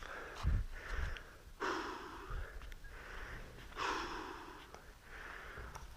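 A person breathing heavily close to the microphone: four long breaths spaced about every one and a half to two seconds, with a low thump about half a second in.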